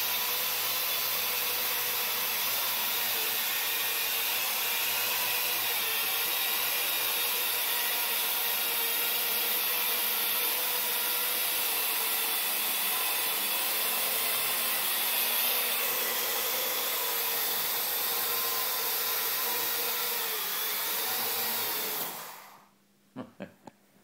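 Parrot AR.Drone quadcopter's four electric motors and propellers running steadily in flight: a dense, high whine with several steady tones. It cuts off suddenly near the end as the drone lands, followed by a few light knocks.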